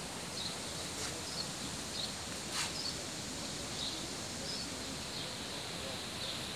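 A small bird chirping in short notes every half second to a second over a steady outdoor hiss, with one soft click about two and a half seconds in.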